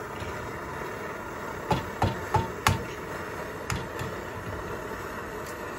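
An egg knocked against the rim of a speckled stone-coated frying pan to crack it: four sharp taps in quick succession about two seconds in, each with a short metallic ring, then two softer taps a second later, over a steady background hiss.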